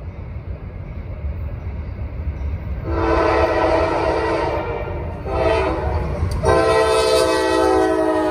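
Norfolk Southern diesel locomotives approaching with a low engine rumble, then sounding their multi-tone air horn three times: a long blast, a shorter one, and a long blast held as the lead locomotive passes.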